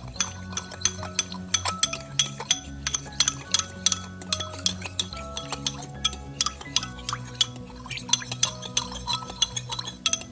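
A spoon stirring in a cooking pot, with many quick, irregular clinks of utensil against pot, over background music.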